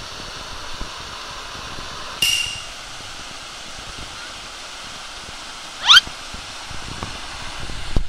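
Water rushing steadily down a rock waterslide in a mountain stream. About two seconds in comes a brief burst, and about six seconds in a short, sharp rising squeal.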